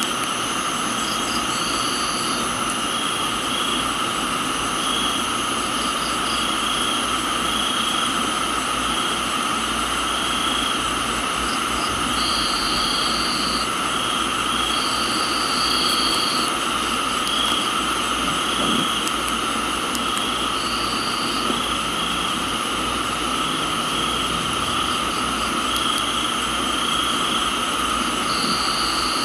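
Tropical night chorus of crickets and other insects chirping and trilling steadily over an even rain-like hiss, with a higher trill cutting in for a second or two every few seconds.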